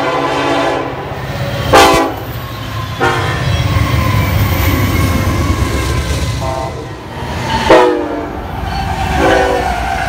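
Union Pacific diesel freight locomotives passing close by with a steady low engine rumble, their air horn sounding in several short blasts; the loudest come about two seconds in and again near eight seconds, that one dropping in pitch.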